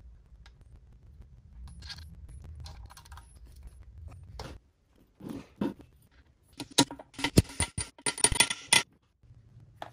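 Small steel engine parts of a 1928 Harley-Davidson JH two-cam engine clicking and scraping as they are handled and fitted into the aluminium cam case. The second half has a quick run of loud, sharp metal clinks.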